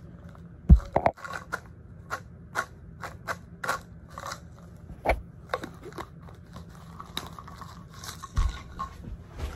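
Close handling noise right at a phone's microphone: a run of small clicks, taps and rustles as hands work over the phone, with a few heavier thumps about a second in and near the end.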